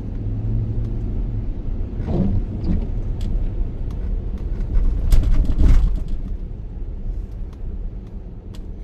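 Road noise heard inside a moving car: a steady low rumble of engine and tyres, with a louder swell about five seconds in that eases off afterwards.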